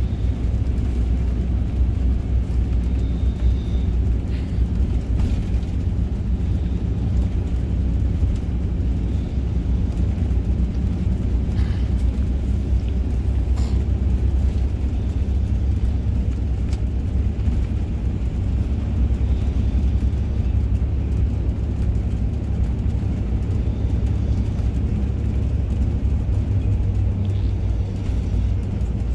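Steady low rumble of an intercity bus driving along, its engine and tyre noise heard from inside the cabin.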